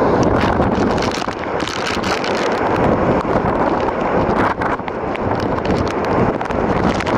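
Tropical cyclone wind blowing hard over a sailboat's deck and rigging and buffeting the microphone, with rain spattering in short ticks.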